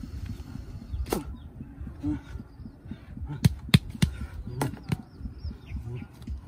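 Scuffling in dry grass as a small crocodile is pinned under a wooden pole and grabbed by hand. Several sharp knocks come through it, the loudest two close together about three and a half seconds in.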